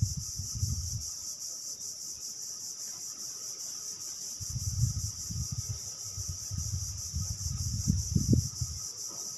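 Steady high-pitched insect chorus, crickets or similar, with a low rumble close to the microphone near the start and again from about four and a half seconds until near the end.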